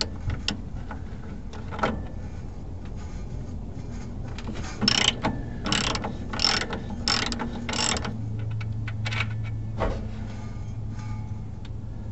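Ratchet wrench clicking as it turns a shock absorber's mounting nut. There are a few scattered clicks, then a run of five quick ratcheting strokes in the middle, about two-thirds of a second apart.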